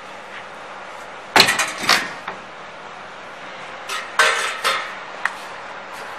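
Knocks and clanks of a steel machine frame being lifted out of a plywood shipping crate: two sharp knocks about a second and a half in, a louder clatter of knocks around four seconds in, then a single click.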